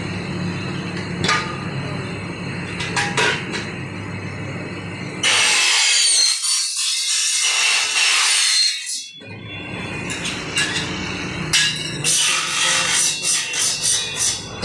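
Aluminium cutting saw biting through an aluminium window profile: a loud, high-pitched screech with wavering tones that starts suddenly about five seconds in and lasts about four seconds. Workshop clatter and clicks come before and after.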